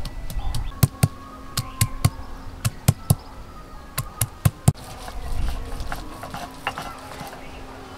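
Stone roller of a sil-nora grinding stone knocking down onto garlic cloves and ginger pieces on the stone slab, crushing them for a ginger-garlic paste: about a dozen sharp, irregular knocks over the first five seconds, then they stop.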